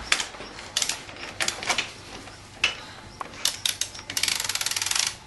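Ratchet wrench working on a dirt bike's front axle and fork bolts: scattered metal clicks and knocks, then about a second of fast, even ratchet clicking near the end.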